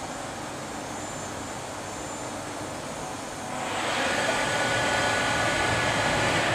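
NORTE VS 500 Speed vertical machining center at work. A steady machine hum grows louder about three and a half seconds in, becoming a rush with a high whine that holds for about three seconds and begins to ease off at the end.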